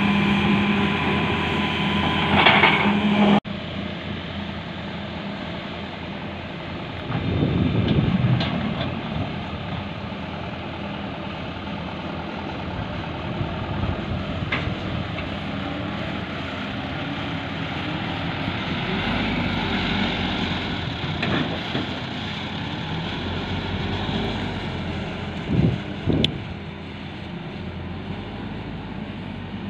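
Diesel engines of a working excavator and dump truck running steadily. The sound changes abruptly a few seconds in, and there are louder surges about a third of the way through and again near the end.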